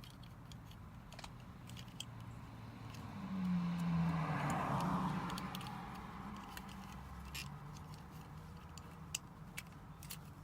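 Light plastic clicks and taps from handling a car door light's plastic housing cover while trying to slide it on. A car passes in the middle, its sound rising and then fading.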